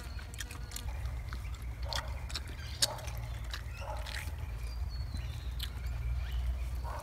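A person biting and chewing spit-roasted rabbit meat off the bone: scattered wet clicks and mouth smacks of eating, with one sharper click about three seconds in.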